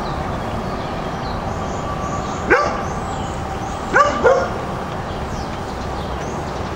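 Three short yelps, one about two and a half seconds in and two in quick succession about four seconds in, over a steady background hiss.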